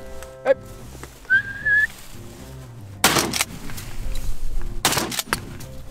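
Two shotgun blasts about two seconds apart, each trailing off in a short echo, over soft background music. A short high whistle comes about a second in, before the shots.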